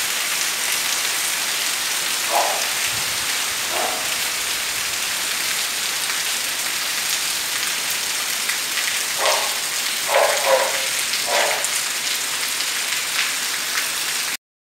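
Rain falling steadily on roof tiles and a tiled patio, a constant hiss. A few short sounds stand out over it, one about 2 s in, one about 4 s in and four more between about 9 and 11 s. The recording cuts off abruptly near the end.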